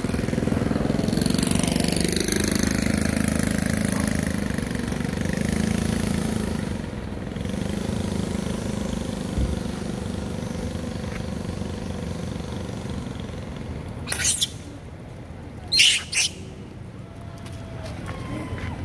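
Short, high-pitched squeals from long-tailed macaques: one about 14 seconds in and a quick pair near 16 seconds. Under them, a motor vehicle drones steadily for the first six or seven seconds, then fades.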